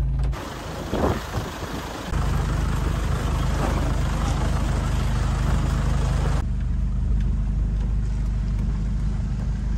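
A 4x4's engine running steadily at low revs, a low drone with road noise over it, dropping out briefly near the start and coming back about 2 seconds in, with an abrupt change in the sound about 6.5 seconds in.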